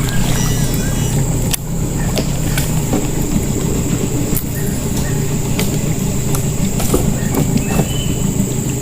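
A small boat's motor running steadily with a low drone, and a few sharp clicks scattered through it. A thin, steady high whine runs over the top.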